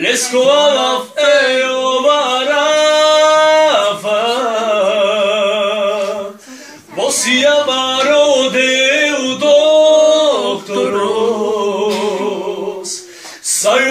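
A man singing a Christian praise song a cappella: long held notes with ornamented, wavering pitch in phrases broken by short breaths, the longest pause about halfway.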